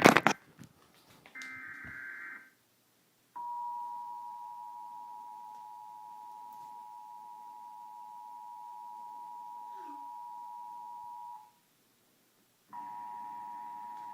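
Emergency Alert System broadcast: after a loud click, the last burst of the screeching SAME digital header data ends, and after a brief pause the EAS two-tone attention signal (853 Hz and 960 Hz sounded together) sounds steadily for about eight seconds, then cuts off. After a second of silence the same two-tone signal starts again near the end.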